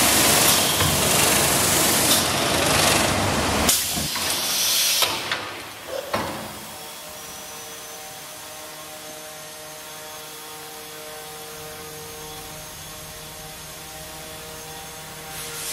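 Löwer FA4S polishing and finish-sanding machine: its spinning abrasive brushes scour a wooden window frame with a loud rushing noise that fades out about six seconds in. Then only the machine's electric motors are heard, running with a steady hum.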